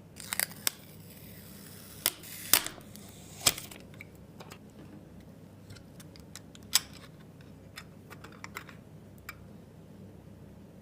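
Hands handling PC parts during assembly: a run of sharp clicks and knocks, the loudest in the first few seconds over a brief rustle, then lighter ticks after the middle.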